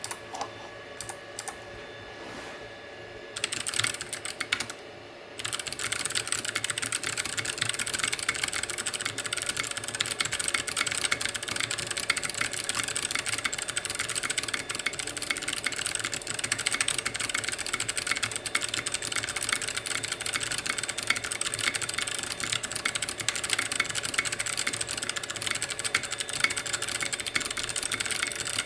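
Typing on a 3D-printed FC660 mechanical keyboard with clicky Kailh Box Jade switches. A few scattered keystrokes come first, then a short burst about four seconds in, then fast, continuous typing, each keystroke a sharp click.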